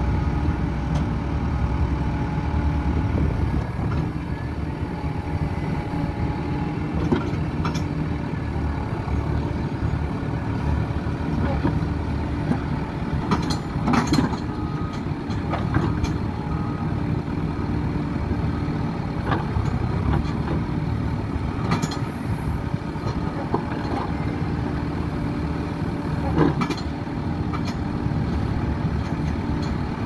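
JCB 3CX backhoe loader's diesel engine running steadily while the backhoe arm is worked hydraulically, puffing dark exhaust under load. A few short knocks are heard here and there, the strongest about fourteen seconds in.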